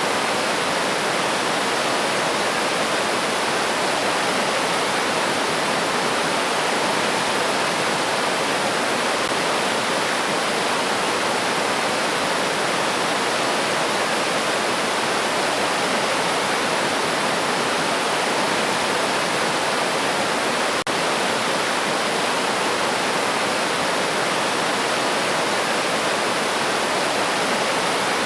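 River water rushing over rocks in a steady, unbroken flow.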